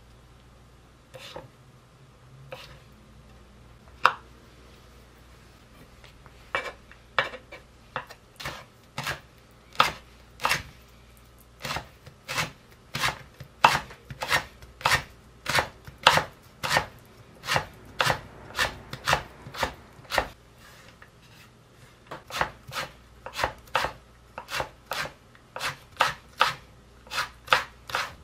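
Chef's knife chopping mandarin peel on a wooden cutting board, mincing it finely. A few separate cuts at first, then steady knocks of the blade on the board at about two a second, with a short pause before the mincing picks up again slightly faster.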